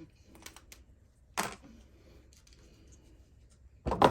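Small clicks and taps of hand tools and plastic RC differential parts being handled: a few light ticks, a sharper click about one and a half seconds in, and a louder knock near the end.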